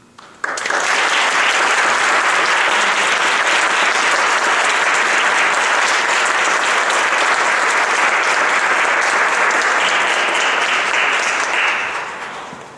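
Audience applauding: many hands clapping in a dense, steady patter that starts suddenly about half a second in and fades out near the end.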